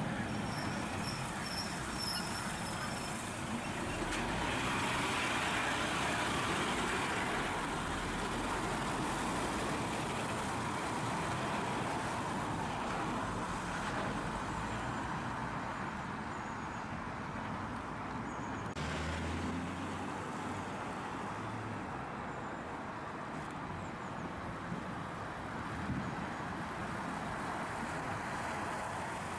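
Volvo articulated lorries going past on the road: diesel engine and tyre noise swell as one passes about four to seven seconds in and fade as it pulls away. Near the end another lorry approaches.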